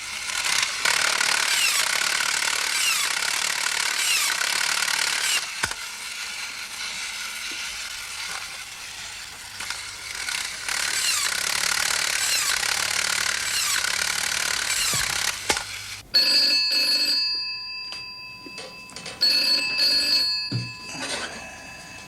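A loud, dense hiss full of quick falling chirps that cuts off suddenly after about sixteen seconds, followed by a telephone ringing in repeated bursts.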